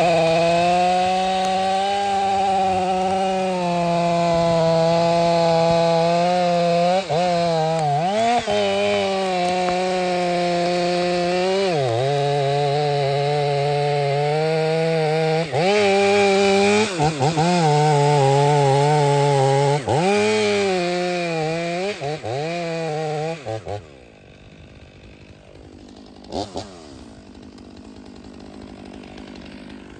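Two-stroke chainsaw running at high revs while cutting into a thick tree spar. Its pitch sags and recovers several times as the chain bites, and the sound drops away about 24 seconds in.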